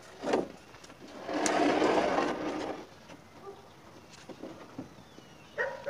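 A precast concrete joist of about 100 kilos being pivoted and dragged by hand, scraping over the ground and the other joists: a short knock near the start, then a scrape lasting about a second and a half.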